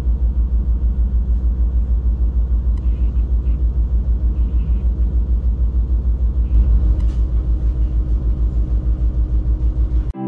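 Inland cargo ship's diesel engine running with a fast, even low throb, swelling slightly about six and a half seconds in.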